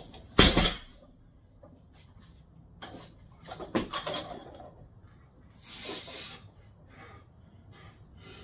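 Loaded barbell with bumper plates set down on the rubber floor mats with a heavy thud about half a second in. A few seconds later the bar and plates clank as a 190 lb squat clean is caught, followed by a sharp breath.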